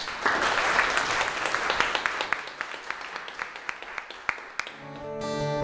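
Audience applause, many people clapping, thinning to scattered claps over about four and a half seconds. Strummed acoustic guitar music comes in near the end.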